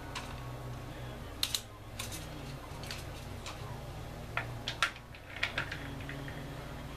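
Hand-held priming tool seating small rifle primers into 5.7 x 28 mm brass cases: irregular sharp clicks and clinks of the tool and brass, with a pair about a second and a half in and a quick cluster near the middle-end.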